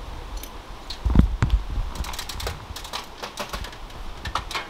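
Irregular clicks and knocks, with one heavier thump about a second in.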